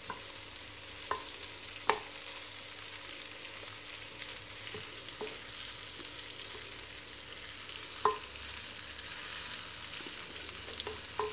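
Marinated meat and onions sizzling in oil in a clay tagine over the heat, a steady hiss. A wooden spoon knocks lightly against the clay a handful of times as the onions are pushed under the meat.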